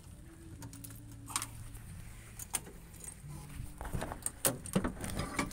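Light clicking and rattling of handling on the mini excavator's bodywork, like keys jangling, with a cluster of sharper knocks about four to five seconds in, over a low steady hum.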